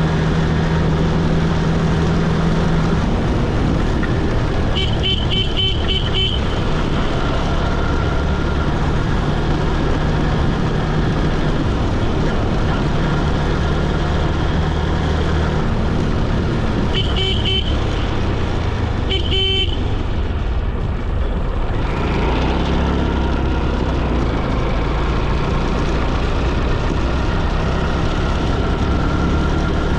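Steady engine and road noise of a motor vehicle on the move. A horn sounds in a quick run of short beeps about five seconds in, then in two shorter runs about twelve and fourteen seconds later.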